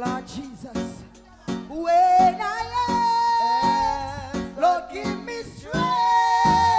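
Live band playing a reggae groove: a drum kit struck with sticks on a steady beat, with long held, sliding sung notes over it and a bass line coming in about two and a half seconds in.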